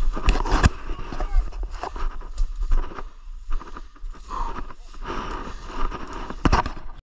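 Footsteps crunching and rustling through dry fallen leaves and low undergrowth, with irregular sharp crackles of twigs and brush; the loudest crackles come just after the start and about six and a half seconds in.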